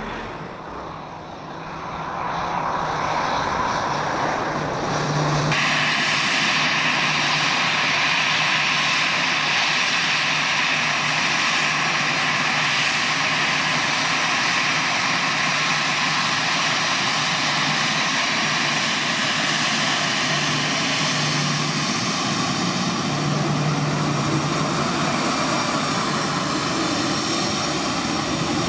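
Airbus A319's twin CFM56 turbofan engines at taxi power: a distant engine sound that swells over the first couple of seconds, then, from about five seconds in, a loud, steady jet whine and hiss as the airliner taxis close by.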